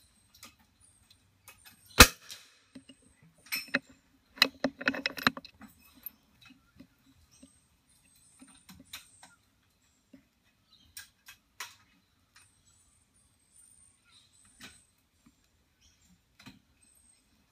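.22LR rimfire benchrest rifle fired once, a single sharp crack about two seconds in. A couple of seconds later comes a quick run of metallic clicks and rattles from the rifle's bolt being worked after the shot, then a few faint ticks.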